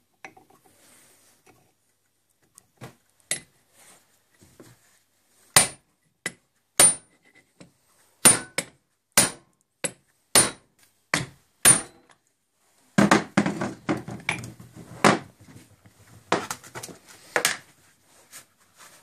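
Ball bearing being knocked down into a steel lathe headstock housing: a series of about ten sharp metal knocks with a slight ring, roughly one every half second to second. In the last few seconds they give way to a denser clatter of metal on metal.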